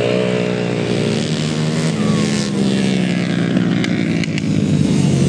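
Grasstrack racing motorcycle engines running hard, several at once, their pitch rising and falling as the riders throttle off and on through the bends.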